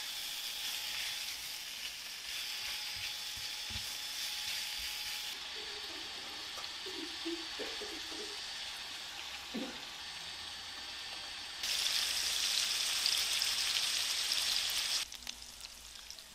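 Food sizzling in a hot frying pan: a steady hiss that drops slightly about five seconds in, gets louder about twelve seconds in, and then cuts off suddenly shortly before the end.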